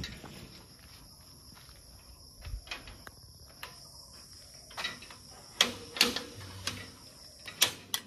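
Green painted steel gate being handled and pushed open: several sharp metallic clanks and rattles with a brief ring, in the second half. A steady high insect trill, like crickets, runs underneath.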